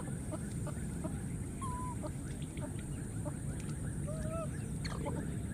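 Short, wavering animal calls, several brief peeps and a few longer warbling notes, over a steady low background noise and a thin, steady high whine.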